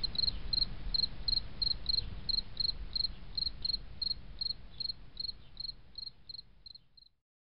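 Regular high-pitched chirps, about three a second, over a low rumble, growing fainter and stopping shortly before the end.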